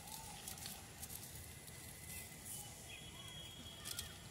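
A paper envelope being torn open by hand: faint rustling and tearing, loudest just before the end, with a few faint bird chirps.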